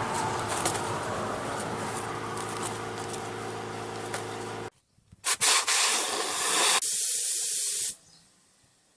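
An electric air pump inflating giant pool floats: a steady motor hum with a rush of air. It cuts off about halfway, and after a brief pause comes a loud hiss of air for about three seconds, then near quiet.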